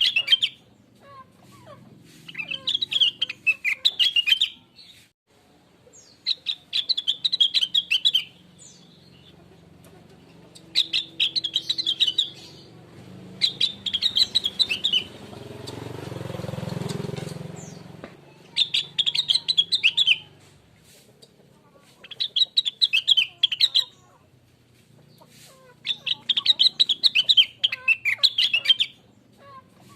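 Rengganis (cucak wilis) leafbird singing in repeated bursts of rapid, high chirping phrases, each a second or two long, with short pauses between. Around the middle a soft rush swells and fades under the song.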